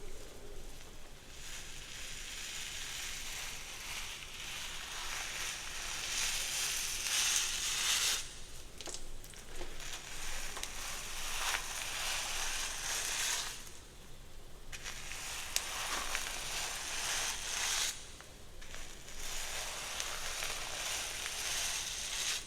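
Crackling, rustling sounds of hair being worked close to the microphone, in passes of several seconds each with short pauses about 8, 14 and 18 seconds in.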